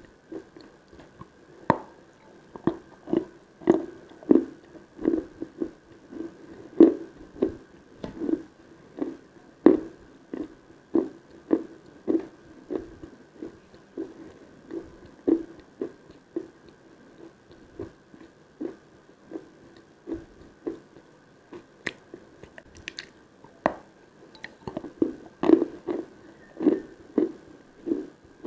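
Close-miked chewing of edible Khrapovsky chalk, with steady, even chews at about two a second.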